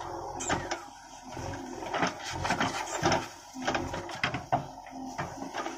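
JCB 3DX backhoe loader working: its diesel engine and hydraulics run steadily while the backhoe bucket digs and scrapes into dry soil. A string of sharp clicks and clanks comes from the bucket, linkage and stones, densest in the middle.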